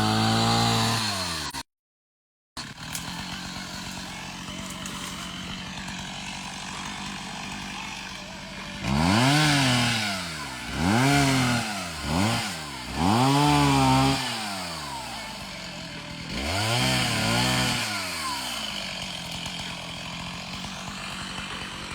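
Stihl chainsaw idling steadily, revved up and let back down about five times in quick succession in the middle, each rev rising then falling in pitch. It opens with the engine winding down, followed by a brief cut in the sound.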